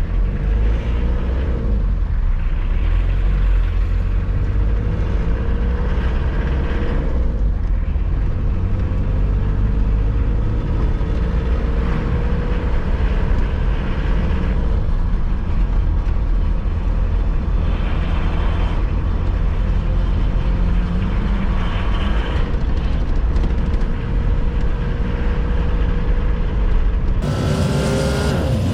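Mitsubishi L200 pickup's freshly overhauled diesel engine pulling the truck along on a drive, its pitch climbing and dropping several times as it revs up through the gears, over a steady low road rumble. Near the end a brighter rushing noise comes in.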